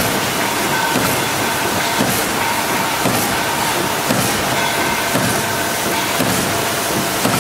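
Concrete roof tile machine running: a steady mechanical clatter with a regular knock about once a second from the pneumatic cutting station working on the moving tile ribbon.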